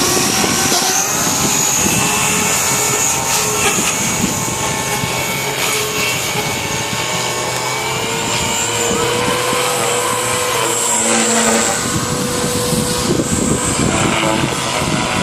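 JR Forza 450 radio-controlled helicopter in flight: a steady whine from its motor and rotor head that drifts slightly up and down in pitch, with strong wind buffeting the microphone.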